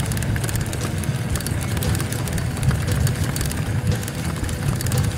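Wind buffeting an action camera's microphone as a mountain bike descends a dirt track, giving a heavy, steady rumble. Over it come the tyres rolling on gravel and many small clicks and rattles from the bike.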